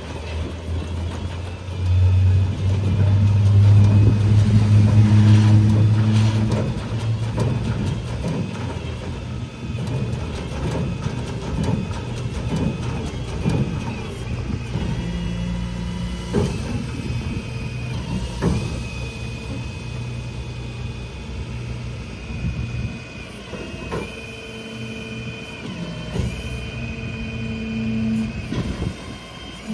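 Rollback tow truck's engine running, revved up for several seconds early on, apparently driving the hydraulics while the load is slid off the tilted bed. A steady high whine comes and goes in the second half.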